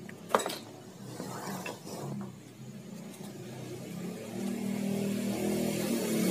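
A sharp click about half a second in, then an engine running steadily and growing louder over the last couple of seconds.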